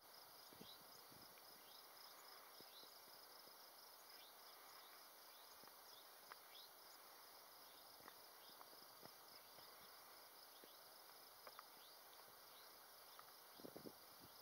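Faint insect chirping, a steady rapid pulse, with a few soft knocks near the end.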